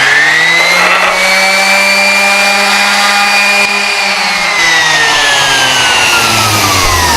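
Electric sander running at a steady whine while smoothing the curved edge of a wooden table leg, then winding down, its pitch falling over the last few seconds as it is switched off.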